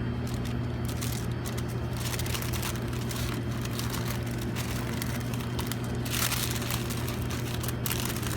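Paper wrapper crinkling and crackling in short bursts as it is folded around a gyro by hand, over a steady low mechanical hum.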